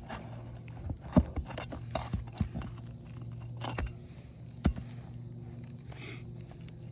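Scattered knocks, clicks and scrapes of a hand tool prying up asphalt shingles and pulling their nails, with the sharpest knocks about a second in and just before five seconds.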